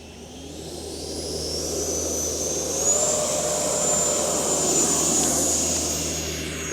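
Electric ducted-fan whine of an E-flite Viper 90mm RC jet, growing louder over a few seconds as its pitch steps up, then holding and fading near the end.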